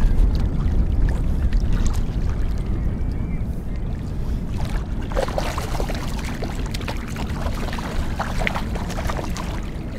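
Steady low rumble of wind and lake water against the kayak. From about halfway, irregular clicks and splashing come in as a hooked fish thrashes at the surface beside the hull.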